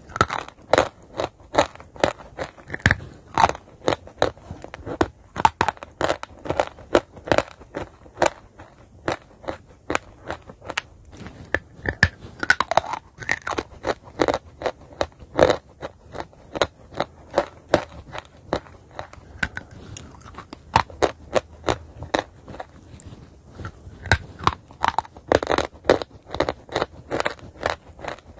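Chalk being bitten and chewed close to the mouth: a run of sharp, dry crunches, two or three a second, easing off briefly a couple of times before picking up again.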